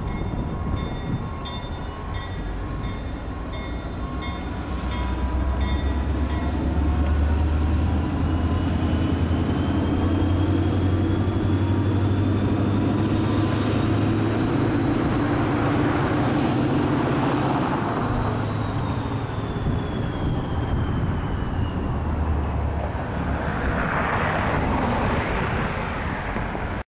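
EMD diesel switcher locomotive working under load: the engine drone steps up about five seconds in and holds steady, while a high whine climbs slowly in pitch until about two-thirds of the way through, then falls. A grade-crossing bell rings at the start and stops after about five seconds.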